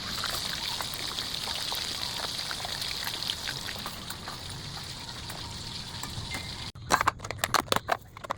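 Chicken wings frying in hot oil: a steady sizzle dotted with crackles. About two-thirds of the way through it cuts off abruptly and gives way to a rapid run of sharp clinks and clatter.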